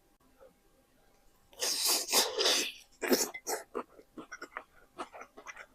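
A loud slurp of sticky zhajiangmian noodles lasting about a second, a second shorter slurp, then close-up chewing with quick wet smacks.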